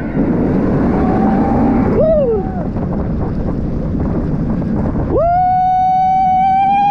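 Wind and rushing noise from a B&M floorless coaster train at speed, heard from the front row. A rider gives a short whoop about two seconds in, then lets out a long, high, held scream from about five seconds in.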